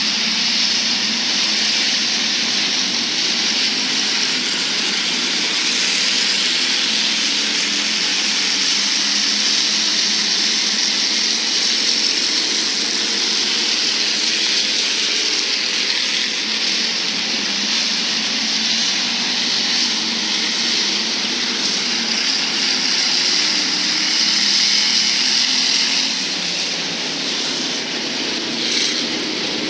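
Pack of Hobby Stock race cars running at speed, a steady engine drone with a strong hiss over it, easing off slightly near the end.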